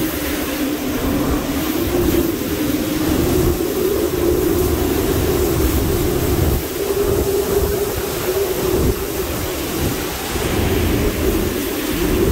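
Hurricane-force wind from a hurricane's back eyewall howling and gusting, with a wavering howl that rises and falls in pitch over a deep buffeting rumble.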